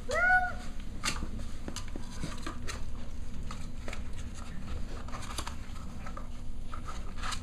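A Cavalier King Charles spaniel puppy gives one short, high yip at the start, then a litter of puppies scuffles at play, with scattered clicks and rustles of paws and toys.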